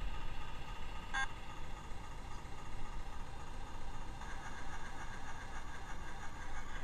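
Mamod Boulton model diesel locomotive running slowly along the track pulling mining wagons: a steady mechanical whine over a low rumble. There is a brief high squeak about a second in, and the whine turns warbling from about four seconds in.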